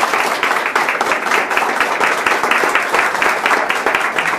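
A small gathering applauding, many hands clapping steadily.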